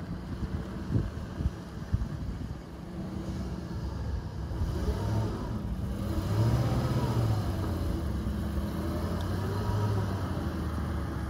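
Gasoline engine of a 2005 Chevrolet box truck running as the truck drives slowly on gravel, its pitch rising and falling as it pulls away and eases off about halfway through. A few wind thumps on the microphone in the first couple of seconds.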